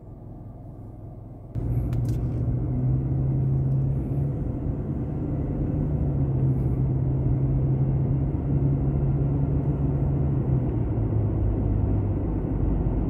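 Car engine hum and road noise from a moving car, heard from inside. It comes in suddenly about a second and a half in after a much quieter start, then holds steady.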